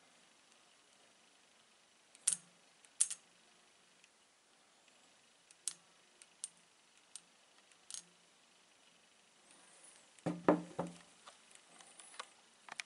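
Sharp clicks of a neodymium magnet snapping against meteorite stones, about seven scattered through the first eight seconds, then a short clatter of louder knocks about ten seconds in as it touches the pile of small stones. The magnet is being drawn onto the stones because they hold iron.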